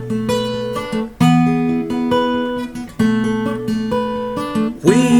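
Acoustic guitar strumming and picking chords in an instrumental passage of a song, with fresh strums every second or two. Near the end a brighter, sustained tone that bends in pitch comes in over the guitar.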